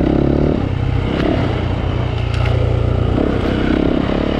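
Dirt bike engine running as it is ridden over a rough trail, its pitch stepping up and down with the throttle. A few sharp clicks and rattles from the bike over the ground.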